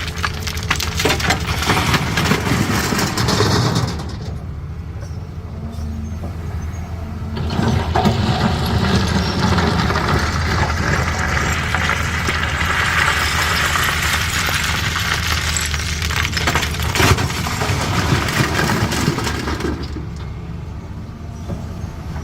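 Caterpillar 320D excavator's diesel engine running steadily, with stone clattering, cracking and scraping as the bucket works the rock. The clatter stops for about three seconds starting around four seconds in, and again near the end, leaving only the engine.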